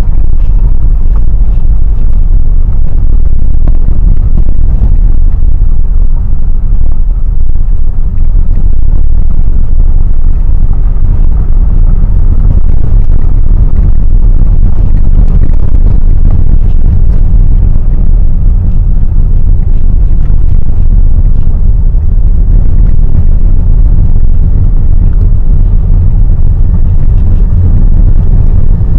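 Steady low rumble inside a moving car on an unpaved dirt track: engine and tyre noise.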